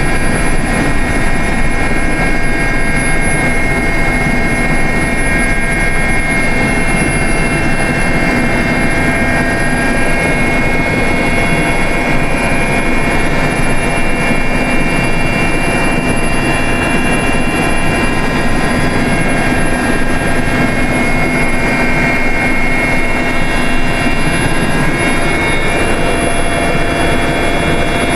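Mi-8 helicopter's turboshaft engines and rotor heard from inside the cockpit in cruise flight: a loud, steady drone with several constant high whining tones over it.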